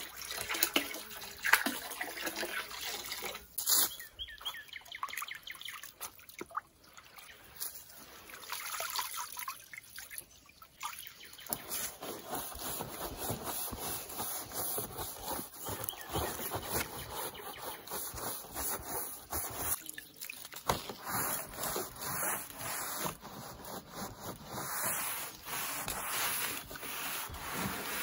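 Liquid poured from a jug into a bucket of water, trickling and splashing. Then, through the second half, a stiff long-handled brush scrubbing vinyl house siding in quick, repeated back-and-forth strokes.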